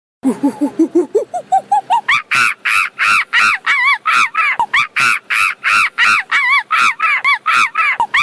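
Monkey chatter: a fast run of calls that climb in pitch over the first two seconds, then settle into steady, high, shrill calls about three a second.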